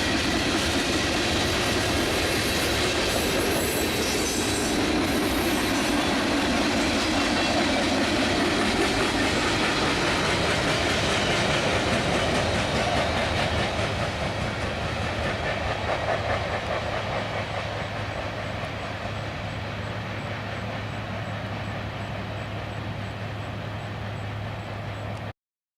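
Freight train cars rolling slowly past, wheels clicking over the rail joints. The sound eases off in the second half and cuts off suddenly near the end.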